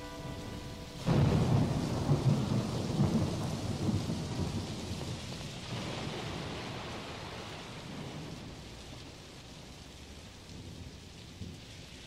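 Recorded thunder and rain effects closing a rock song's soundtrack. The last sustained keyboard notes die away, then about a second in a thunderclap breaks and rumbles down over several seconds, while the steady rain hiss slowly fades out.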